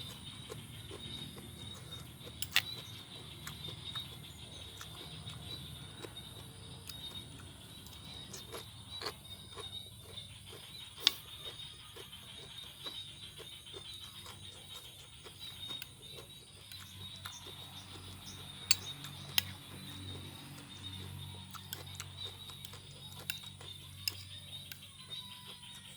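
Close-up chewing and crunching of raw vegetable salad, with a few sharp clicks, over a steady background hum.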